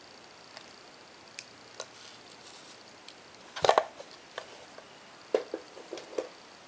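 Handling noise from a small wooden display frame turned in hands wearing metal rings: scattered light clicks and taps, a cluster of louder knocks about three and a half seconds in, and a few more knocks near the end.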